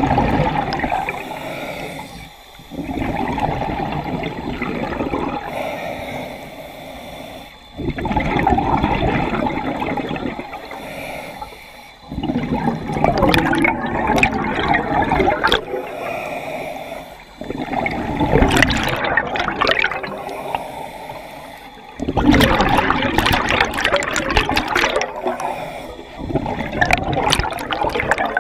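Scuba diver breathing through a regulator underwater: exhaled bubbles rush and gurgle in loud bursts every four to five seconds, with quieter inhalations between.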